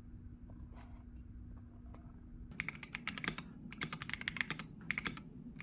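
Razer BlackWidow V4 Pro 75% mechanical keyboard being typed on. After a quiet start, rapid runs of keystrokes begin about halfway in and come in three quick bursts.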